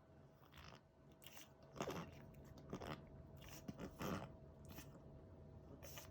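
A puppy's repeated short hiccup-like spasms: about eight sharp noisy breaths, one every half second to a second, the loudest about two seconds in. The owner could not tell whether they were reverse sneezes or hiccups.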